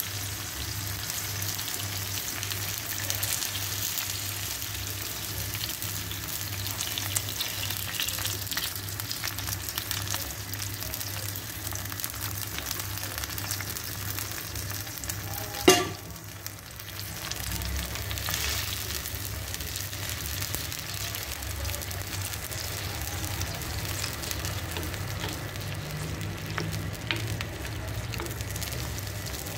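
Tomato, onion and pepper sauce sizzling and bubbling in a clay tagine. Water is poured in at the start and the sauce is stirred with a wooden spoon, over a low steady hum. One sharp knock about halfway through is the loudest sound.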